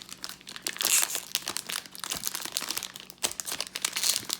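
Plastic wrapper of a Topps 2020 Series 2 baseball card pack crinkling and tearing as it is pulled open by hand, with louder bursts of crackling about a second in and near the end.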